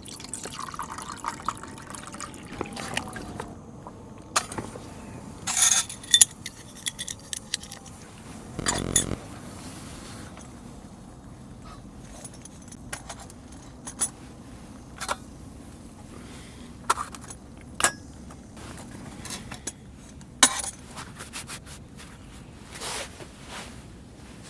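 Scattered clinks and rattles of small metal and glass camp items being handled, sharp taps at irregular intervals over a quiet steady background.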